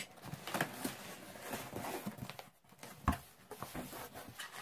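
A cardboard box being pulled open by hand, its flaps and polystyrene packing peanuts rustling and scraping in small irregular clicks. A single knock comes about three seconds in.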